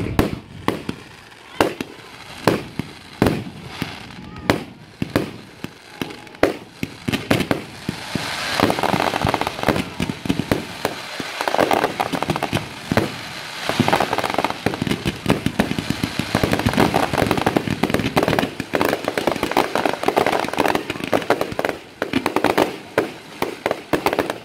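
Aerial fireworks shells bursting with repeated sharp bangs. From about eight seconds in they thicken into a dense, rapid barrage of overlapping bangs.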